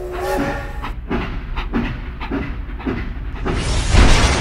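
Toy steam locomotive train sound: a short whistle-like tone, then a steady chuffing clatter of about four beats a second. About three and a half seconds in it gives way to a loud rush of noise, loudest near the end, as the train derails and ploughs into sand.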